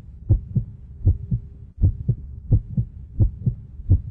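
Heartbeat-style beat in the soundtrack: low double thumps, lub-dub, repeating about every three-quarters of a second over a faint steady hum.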